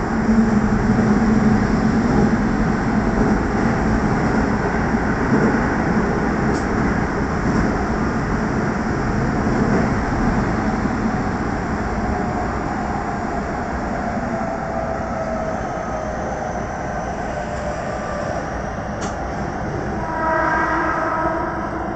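Keihan 3000 series electric train running through an underground tunnel: a steady rumble of wheels on rail with a faint falling whine from the motors partway through. Near the end a short stacked tone sounds for about a second and a half.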